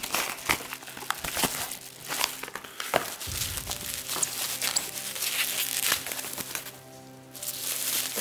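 Plastic bubble wrap crinkling and rustling as it is unwrapped from a small cardboard box, with soft background music underneath.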